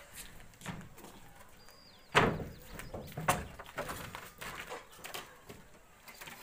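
Wooden shuttering planks knocking together as they are dropped and laid onto the timber formwork: one loud wooden clack about two seconds in, then several lighter knocks.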